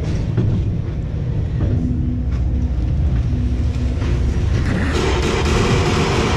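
Ghost-train ride car rolling along its track with a steady low rumble. About five seconds in, the ride's loud interior music soundtrack comes in.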